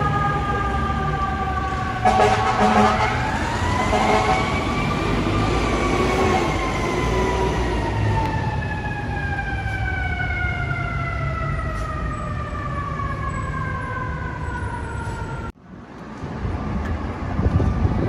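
Fire engine's air horn chord sounding, then its mechanical siren winding up to a high wail and slowly winding back down over about ten seconds. It cuts off suddenly near the end, leaving city traffic noise.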